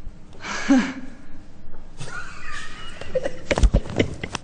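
People laughing helplessly in short vocal bursts, a sharp one about half a second in and more from about two seconds on, with several thumps against a desk near the end.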